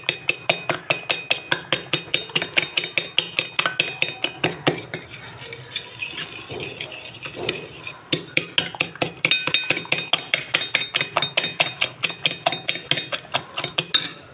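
A fork beating egg and sugar in a china plate, clinking against the plate in a fast, even rhythm of about five strokes a second, softer for a few seconds in the middle.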